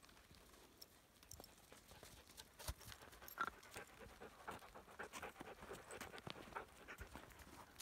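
Faint dog panting in quick, irregular breaths from a border collie, with soft crunching footfalls in snow, picking up about two and a half seconds in.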